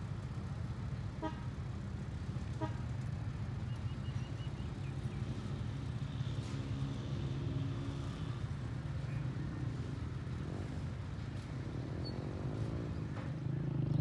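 Diesel engine of a rail track maintenance machine running with a steady low drone as the machine pulls away along the track.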